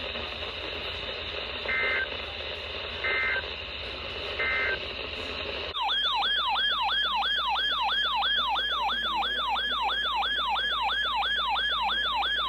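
Three short two-tone EAS data bursts (SAME code) over hiss, then about halfway through a loud siren-like alert tone starts: a rising sweep repeated quickly, about three times a second.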